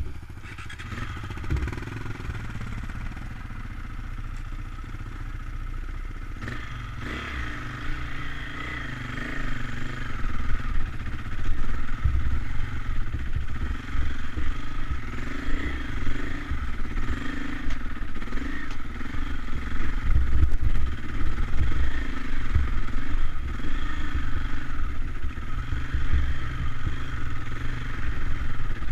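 KTM enduro dirt bike engines running as the bikes climb a rocky track, the throttle rising and falling. The sound grows louder and rougher from about ten seconds in.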